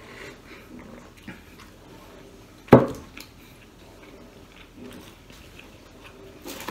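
A glass soup bowl set down on a wooden table with one sharp knock almost three seconds in. Faint sipping and mouth sounds of eating come before it.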